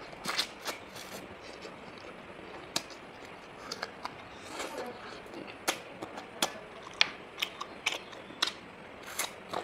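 Close-miked eating sounds of a person eating chicken wings: chewing with irregular sharp clicks and lip smacks, about a dozen, the loudest about seven seconds in.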